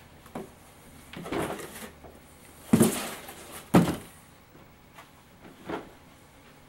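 Large cardboard model-kit boxes being handled: a brushing scrape about a second in, then two sharp knocks about three and four seconds in, and a softer knock near the end.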